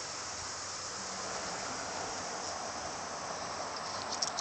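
Steady outdoor hiss, then about four seconds in a few short sharp splashes as a hooked carp thrashes at the water's surface.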